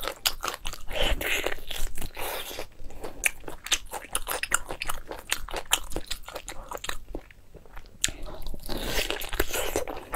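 A person biting and chewing saucy braised meat off the bone: a dense run of short clicks and smacks, easing off for about a second around seven seconds in.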